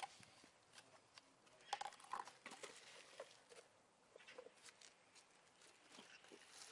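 Faint handling noise from unpacking a pressure washer: scattered light taps and clicks of its plastic parts against each other and the cardboard packing, with a small cluster about two seconds in.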